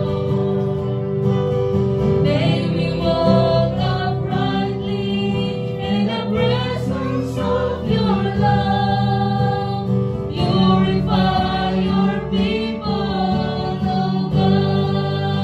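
Live praise-and-worship song: a woman singing a melody into a microphone, accompanied by a strummed acoustic guitar and an electronic keyboard.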